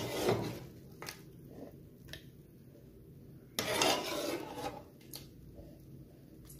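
Metal ladle scraping in a metal cooking pot while curry is served onto a plate: a brief scrape at the start and a longer one about three and a half seconds in, with a few light knocks between.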